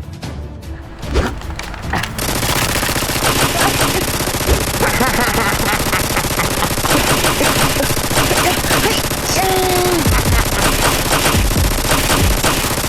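Rapid automatic gunfire, a dense continuous stream of shots that begins about two seconds in and cuts off abruptly near the end.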